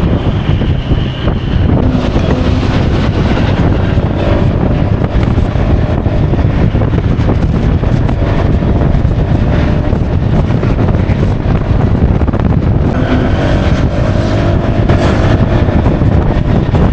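Wind buffeting the microphone and road noise while riding a Honda PCX scooter at speed, with the engine running steadily underneath.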